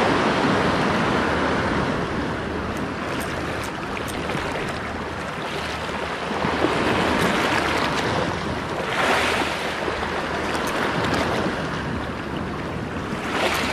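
Sea waves washing and breaking against the shore, with wind on the microphone. The wash swells louder about nine seconds in and again near the end.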